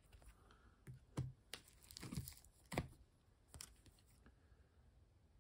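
Plastic trading-card top loaders and sleeves being handled: a handful of faint, short crinkles and clicks between about one and four seconds in.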